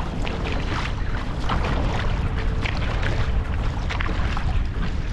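Dragon boat paddles splashing into the water at a steady stroke, about one and a half strokes a second, over a heavy rumble of wind on the microphone.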